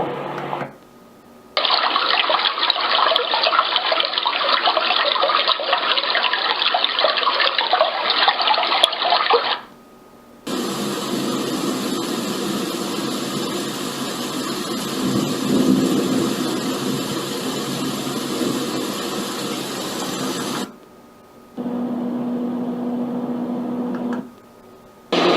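LATME white noise machine playing three different steady noise sounds in turn, each cut off by a brief pause as the next is selected. The last is a shorter, lower sound with a steady hum-like tone in it.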